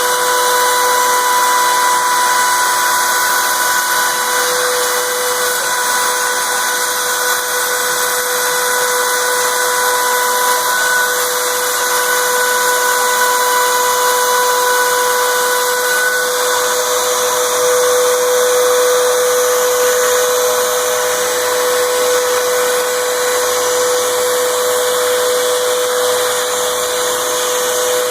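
CNC router spindle with a 1/4" down-spiral carbide bit at 30,000 rpm, milling 1/4" MDF: a steady high whine over a constant rushing hiss.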